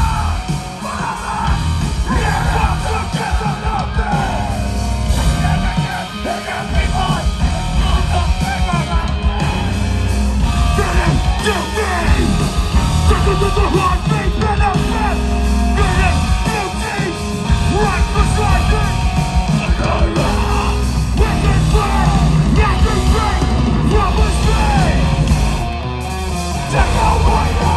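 Live hardcore band playing a loud cover: distorted guitars, bass and drums with a shouted lead vocal. The music drops back briefly near the end, then comes in full again.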